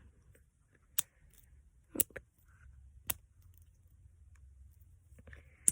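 Plastic fidget-toy pieces clicking as they are flipped up into place: four sharp clicks, about a second apart for the first three, the last near the end.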